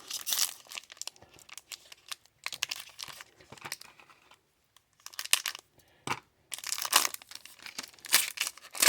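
A trading-card pack's wrapper being torn open and crinkled, in irregular bursts of rustling that grow busier near the end.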